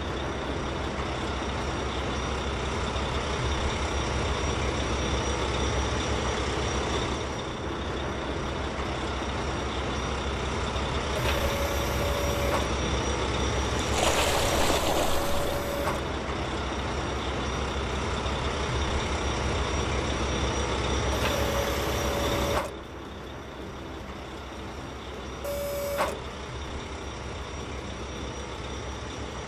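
Heavy construction-machine sound effects: a steady diesel engine noise, with a few short steady tones of about a second each and a hiss lasting about two seconds near the middle. The engine noise drops in level about three-quarters of the way through.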